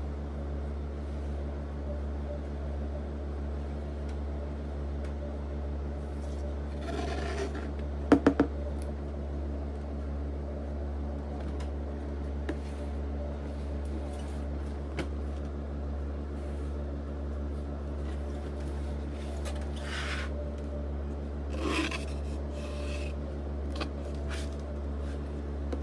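Cardboard of a large collectible-figure box being handled and slid across a table: a few short scraping rubs, and a quick cluster of three knocks about eight seconds in. A steady low hum runs underneath.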